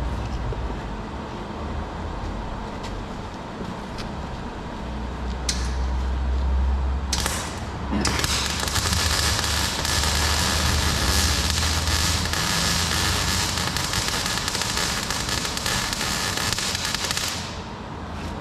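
Electric arc welding on galvanized steel. A few short crackles come as the arc is struck, then about nine seconds of steady crackling from the arc as a tack weld is laid, cutting off abruptly near the end. A steady low hum runs underneath.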